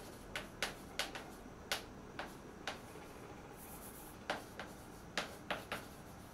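Chalk writing on a blackboard: a dozen or so short, sharp taps at uneven spacing as the chalk strikes and lifts off the board, with a pause of about a second and a half midway.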